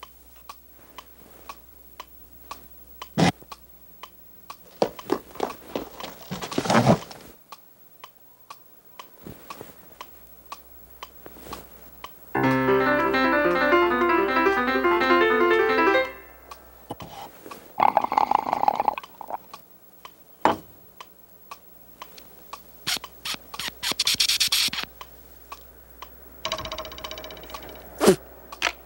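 Cartoon sound effects: scattered sharp clicks and knocks, with a loud burst of music lasting about four seconds, starting about twelve seconds in. A few shorter bursts of noise and tone follow near the end.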